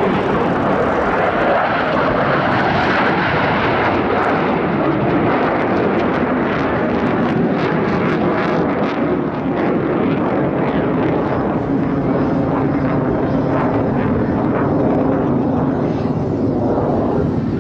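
Jet engine noise from Blue Angels Boeing F/A-18 Super Hornets flying over the show line: a loud, steady rush with crackle.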